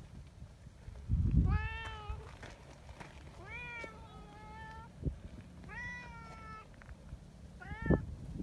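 Brown tabby cat meowing four times: three drawn-out meows of about a second each, then a short one near the end. A low thump about a second in is the loudest sound.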